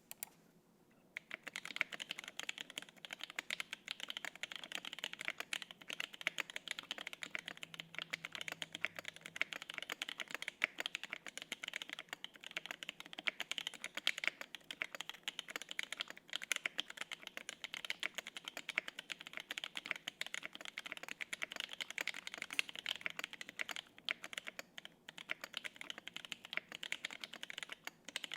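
Steady, fast typing on a gasket-mounted 75% mechanical keyboard (Exclusive E7-V2) with lubed and filmed Durock T1 67 g tactile switches, an aluminium plate and GMK keycaps: a dense run of key clicks that starts about a second in, after a couple of lone clicks.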